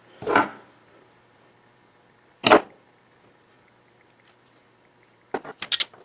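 Small hand tools handled on a tabletop: one sharp knock about two and a half seconds in, then a quick run of clicks near the end from a ratcheting crimper being closed on a connector pin.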